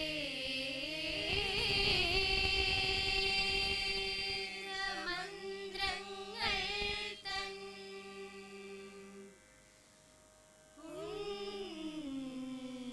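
A small group of teenage voices, mostly girls, sing a patriotic group song (deshabhakti ganam) together into stage microphones, holding long steady notes. Past the middle the singing stops for about a second and a half, then the group comes back in.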